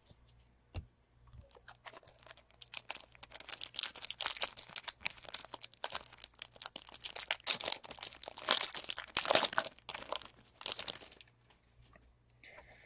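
Foil trading-card pack wrapper being torn open and crinkled, a dense run of crinkling and tearing from about a second and a half in until about eleven seconds in. A single soft knock comes just before it.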